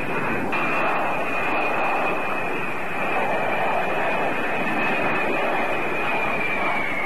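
Jet engines of a low-flying B-52 bomber: a steady rushing engine noise with a high, steady whine that drops slightly in pitch near the end.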